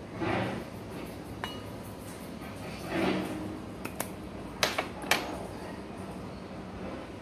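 Kitchen handling sounds: two brief soft rustles of hands rubbing together, then several sharp clicks and clinks as a glass spice jar with a plastic cap is picked up and handled.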